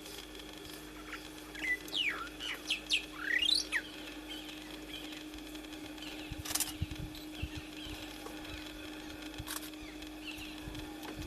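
A bird calling: a quick run of sweeping chirps that rise and fall, from about a second and a half in to about four seconds in, over a steady low hum. Two sharp clicks follow, one past the middle and one near the end.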